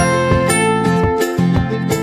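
Background music with a plucked-guitar melody over a steady beat.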